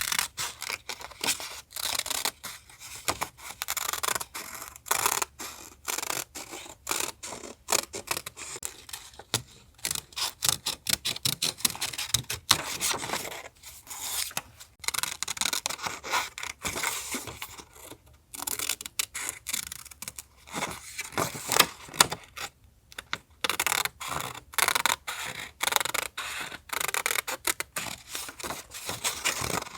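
Close-up paper crafting sounds for a collage journal: paper rustling and scraping in quick, irregular strokes, with a few short pauses.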